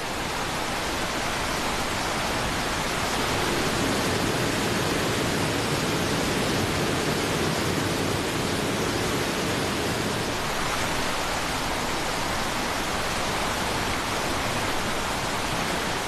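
Waterfall pouring into a churning river: a steady, full rush of falling and turbulent water that swells a little over the first few seconds.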